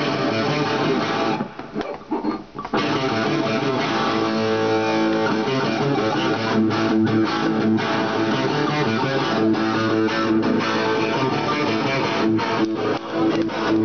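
Gold-top electric guitar with a Bigsby vibrato tailpiece played through a small amplifier, chords ringing on steadily after a short break about two seconds in.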